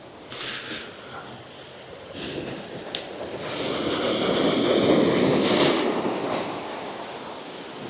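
Ocean surf washing against rocky shoreline ledges, swelling over a couple of seconds and then easing off, with a single sharp click about three seconds in.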